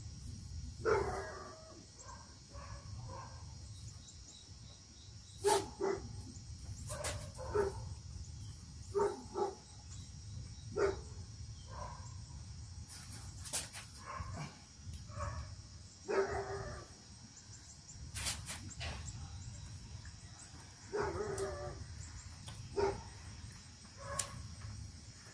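Scattered sharp clicks and taps, with a few short mid-pitched squeaky sounds, as a rubber weatherstrip is worked by hand into the rear hatch opening of a 1985 C4 Corvette.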